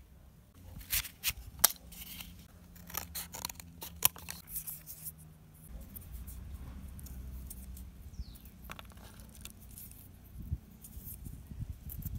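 Hands handling cardboard matchboxes and folding thin striker strips into thirds: sharp clicks and taps come thick through the first five seconds, then soft crinkling and rubbing of the strips.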